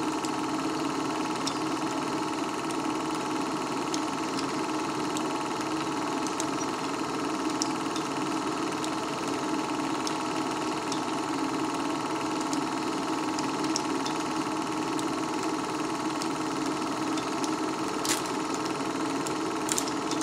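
Movie film projector running: a steady motor whir with faint, irregular clicks, and a couple of sharper clicks near the end.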